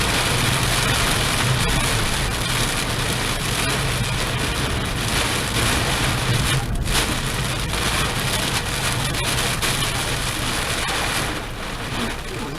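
Torrential cloudburst rain pouring down steadily in a dense hiss. A low hum sits under it and fades about halfway through.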